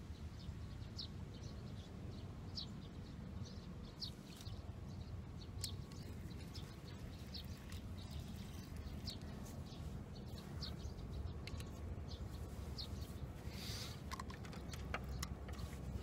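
A small bird repeating a short high chirp about once a second over a steady low rumble, with some rustling and clicks near the end.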